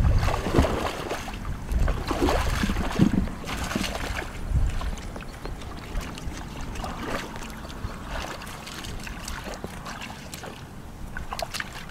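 Shallow muddy water sloshing and splashing irregularly as bare feet wade and hands grope through it, with wind rumbling on the microphone, heaviest in the first few seconds.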